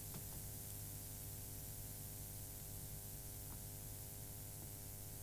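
Faint steady electrical hum with hiss, the background noise of the voice recording, with a few soft clicks.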